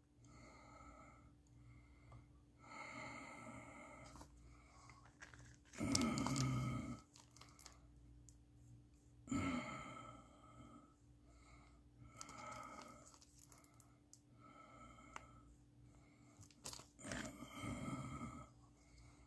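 Faint breathing through the nose close to the microphone, a soft breath every couple of seconds, a few of them louder.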